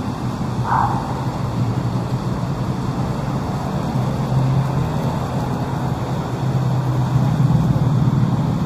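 Steady city road traffic: engines and tyres in a continuous low rumble, with a brief higher-pitched sound about a second in.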